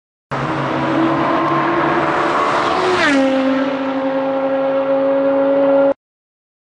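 BMW E60's aftermarket exhaust note, droning at a steady pitch. About three seconds in, the pitch drops sharply and then holds steady at the lower pitch, before the sound cuts off abruptly.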